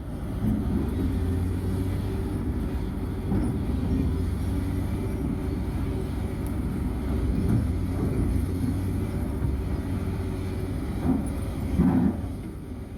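Engine of a mini bulldozer or dump truck running steadily at work, with a few short clunks near the end.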